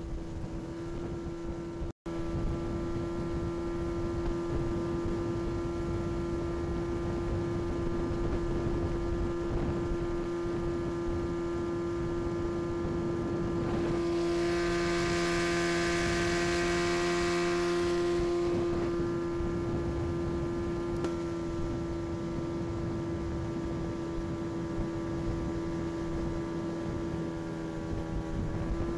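1990 Mercury 25 hp outboard motor running at a steady cruising speed, pushing an aluminium boat along. Water rushing along the hull gets louder for about four seconds midway. The engine note rises slightly near the end.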